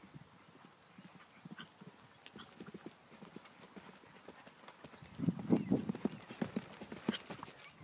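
Hoofbeats of a cantering ex-racehorse on grass turf. They are faint at first and grow much louder from about five seconds in as the horse comes close.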